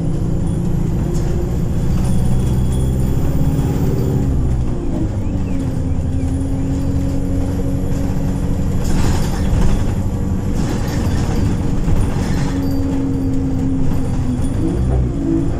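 ADL Enviro200 single-deck bus engine running under way, heard from inside the passenger saloon. Its pitch drops about four seconds in, holds steady, then climbs again near the end, with brief rushes of passing traffic about two-thirds of the way through.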